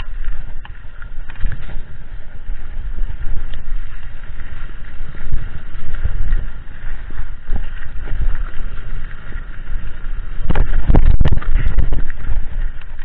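Mountain bike descending a rough dirt trail, heard from a handlebar-mounted camera: wind buffeting the microphone, tyres rumbling over the dirt, and the bike and mount rattling with short knocks. Near the end comes a louder stretch of clattering over rougher ground.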